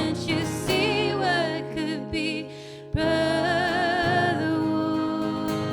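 Song with female voices singing held notes with vibrato over acoustic instruments. The voices fade about two and a half seconds in, and a new held sung chord begins at about three seconds.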